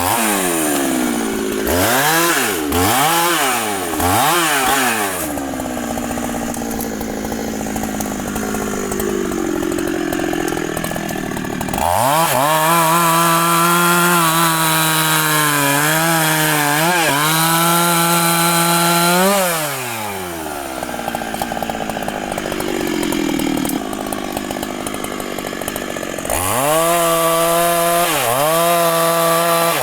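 Husqvarna professional two-stroke chainsaw: blipped several times, then held at full throttle for about seven seconds, its pitch dipping slightly under load as it cuts wood. It drops back to idle and near the end opens up to full throttle again.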